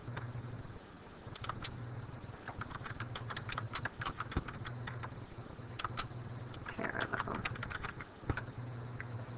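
Typing on a computer keyboard: quick, irregular runs of key clicks over a low steady hum.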